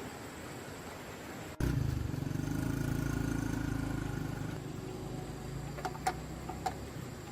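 Tractor engine running steadily, starting abruptly about a second and a half in, loudest for the next couple of seconds and then easing off, with a few sharp clicks near the end.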